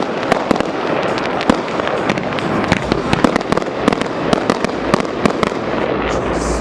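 Fireworks show going off: a dense run of sharp, irregular cracks and bangs over continuous crackling, with a deep rumble building in the second half.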